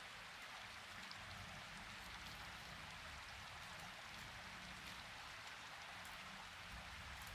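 Faint, steady rain-like hiss with scattered tiny ticks.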